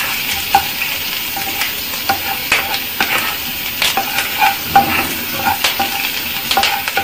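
Thin strips of ginger, garlic and green chilli sizzling in hot oil and butter in a non-stick frying pan as they brown, while a spatula stirs them, scraping and tapping the pan in short irregular strokes.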